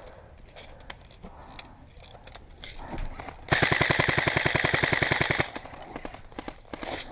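Airsoft gun firing one full-auto burst of about two seconds, a rapid even rattle of shots, starting about halfway through.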